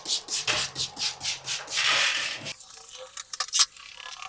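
Quick hissing strokes, several a second, of water being sprayed into the gap around a newly built block partition to moisten it before mounting foam goes in. After about two and a half seconds the spraying stops, leaving a few light clicks and knocks.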